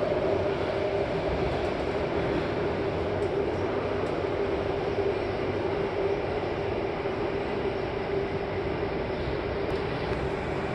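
Steady running noise of a North East Line C751A metro train, heard from inside the passenger car, with a steady hum underneath.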